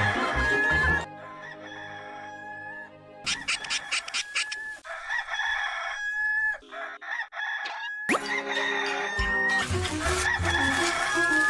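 The Hollywood Edge "Rooster 2 Crow" stock sound effect: a rooster crowing, repeated in several short back-to-back clips with abrupt cuts between them, some with music and other sound underneath.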